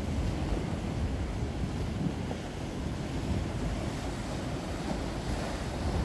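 Sea surf breaking and washing in choppy waves, with wind buffeting the microphone: a steady rushing noise over a low rumble.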